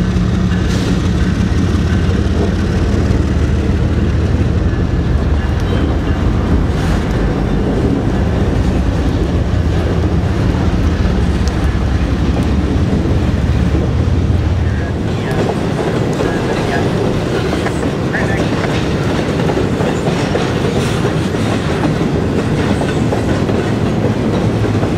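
CN freight train passing close by: diesel locomotive engine rumble that fades about 15 seconds in, giving way to double-stack intermodal cars rolling past with steady wheel-on-rail noise.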